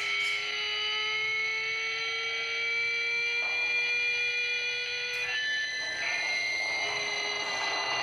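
Background music of long, held synthesizer-like tones that drift slowly upward, with the chord changing a few times.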